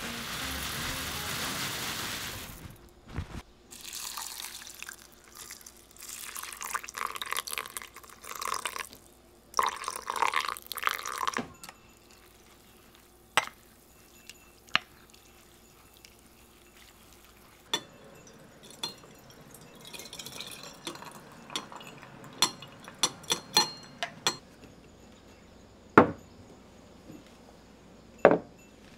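Dry rice koji poured into a glass mixing bowl with a grainy hiss, then water poured in over several seconds. A wooden spatula then stirs the mixture, ticking now and then against the glass. Two sharper knocks near the end are the loudest sounds.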